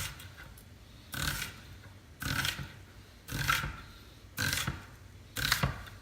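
Kitchen knife cutting through a red onion against a cutting board in even strokes, about one a second, each a short scraping slice ending in a soft knock.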